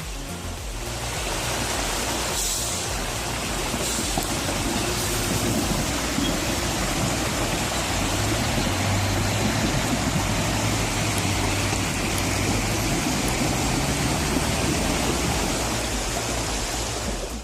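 Loud, steady machinery noise that builds about a second in, with a low hum in the middle stretch.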